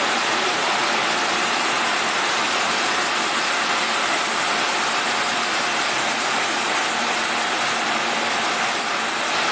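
CNC sheet-metal laser cutting machine at work: a steady, even hiss with a faint hum underneath.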